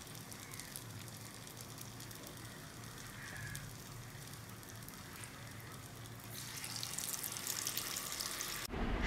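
Batter-coated mung-bean balls deep-frying in a small pan of hot oil, a faint steady sizzle and crackle. About six seconds in the sizzling grows louder as another coated ball goes into the oil.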